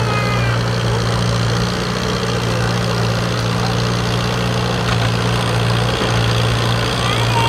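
Allis-Chalmers C tractor's four-cylinder engine running steadily under load as it drags a weight-transfer sled.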